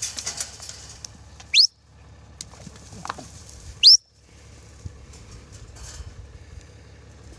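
Two short, sharp whistles, each rising steeply in pitch, about two seconds apart: a handler's whistle commands to a working border collie. In the first second, hooves scuffing and thudding in loose dirt as a cow charges.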